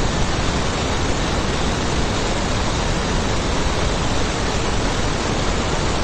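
A steady, even rushing hiss, with no tone or rhythm in it.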